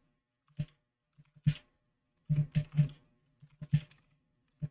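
Keystrokes on a 60% computer keyboard, typed in irregular taps: single presses with a quick run of several a little past halfway through.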